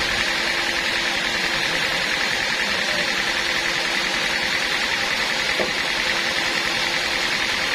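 Sawmill machinery running steadily: a continuous, even machine noise with a faint steady hum beneath it.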